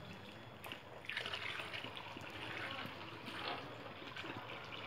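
Water trickling from a garden hose onto wet concrete, coming and going unevenly.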